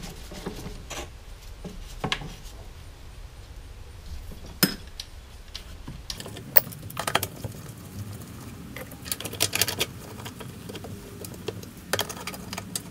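Scattered metallic clicks and clinks of a hand tool working the shoulder bolts that hold the gas tank on a lawnmower engine. The clicks come singly at first and then in quick clusters in the second half.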